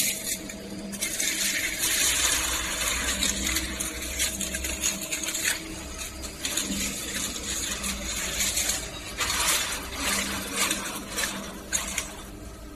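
Light metallic clinking and rattling of aluminium tubes and fins handled on a heat-exchanger core builder, over a steady machine hum.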